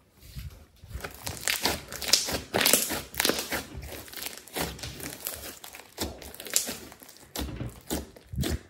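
Thick red slime being squeezed and kneaded by hand against a table, giving a dense run of irregular wet crackles and pops as air pockets in the slime burst.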